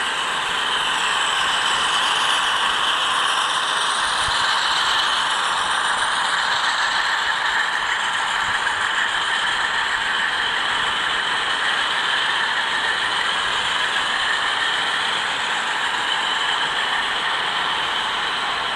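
HO-scale model freight train, a long string of coal hopper cars behind diesel locomotives, rolling past on the layout's track with a steady mechanical clatter of small wheels on rail.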